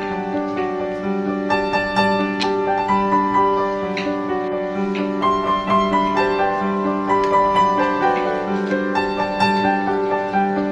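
Background piano music: a melody of short notes over held lower notes, running steadily.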